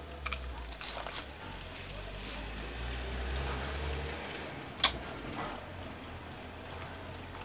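Cellophane wrapping crinkling and crackling as it is pulled off a deck of oracle cards, with scattered small clicks and one sharper click about two-thirds through. A low steady hum runs underneath.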